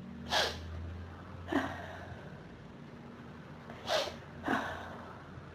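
A person's short, sharp sniffs and breaths through the nose between sneezes in an allergic sneezing fit, from pollen and dust allergies: one early, one about a second later, then two close together past the middle.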